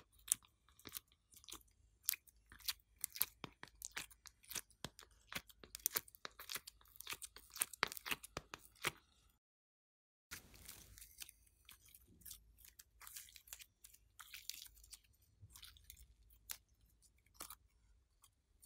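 Dense sticky clicking and crackling as soft modelling clay is picked out of a mould tray by hand. After a short dead gap about nine seconds in, softer, sparser crackles follow as the clay is squeezed into a ball and pressed into glossy slime.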